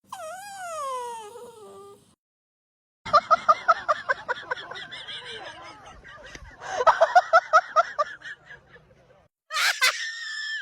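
An animal making laugh-like calls: a falling whine-like call, then two runs of rapid pulsed 'ha-ha-ha' notes. Near the end comes a sharp burst and a steady high whistled tone.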